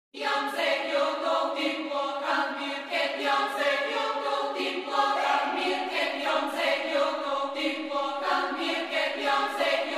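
Choir-like vocal music: sustained sung chords that shift every half second or so, with no drums or bass.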